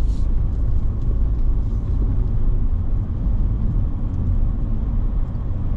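Steady low rumble of a vehicle driving along a road: engine and road noise with no distinct events.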